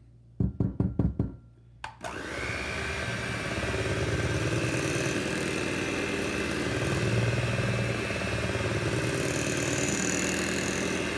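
A quick run of about six sharp knocks, then about two seconds in an electric hand mixer starts and runs steadily with a high whine, its beaters creaming cream cheese batter.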